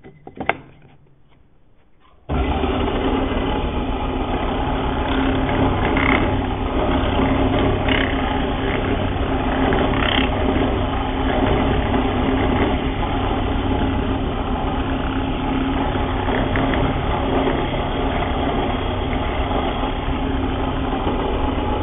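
Bench drill press switched on about two seconds in, its electric motor then running steadily with a constant hum while the bit bores out a mortise in a timber leg.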